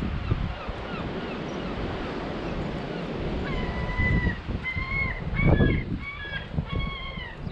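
Garden birds calling at a fat-ball feeder. There is a quick run of short falling chirps, then, from about halfway, a series of about six longer level calls that each drop in pitch at the end.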